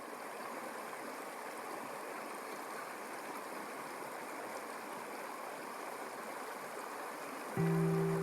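Steady rushing of a flowing trout stream. Near the end, music comes in with low sustained notes over it.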